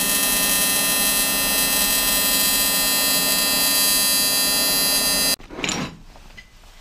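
AC TIG welding arc on thin-wall aluminium tube, a steady buzz that cuts off abruptly about five seconds in; a faint knock follows.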